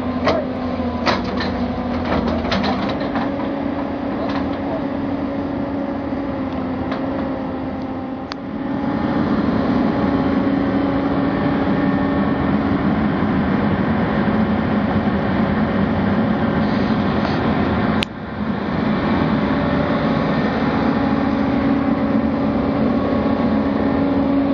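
Excavator's diesel engine running steadily with a constant low hum. There are a few knocks in the first seconds, it gets louder about a third of the way in, and there is one sharp click about three-quarters of the way through.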